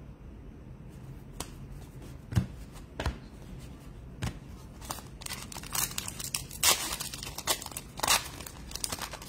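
A few sharp taps as handfuls of trading cards are set down. From about halfway on, a trading-card pack wrapper is torn open with crinkling and tearing.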